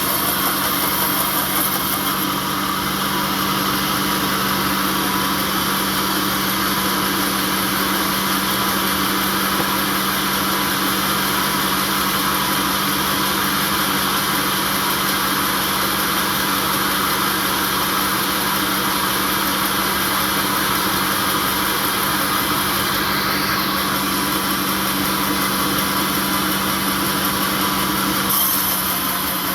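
Sawmill machinery running steadily: an engine or motor with a constant hum and even mechanical noise, unchanging throughout.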